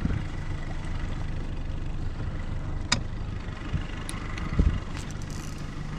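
Boat motor running steadily at idle, a low even hum, with a sharp click about three seconds in and a few dull knocks.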